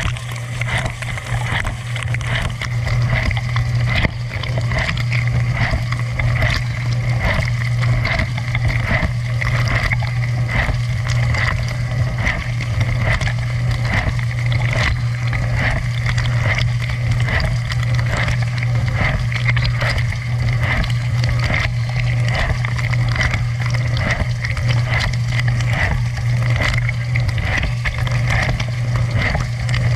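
Dishwasher running a wash cycle: a steady low hum from the circulation pump under a dense spray and splash of water.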